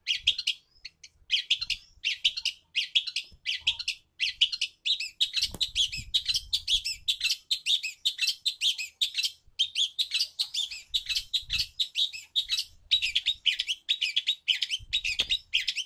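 Long-tailed shrike (cendet) calling: a rapid, almost unbroken chatter of short notes, several a second, with only brief pauses.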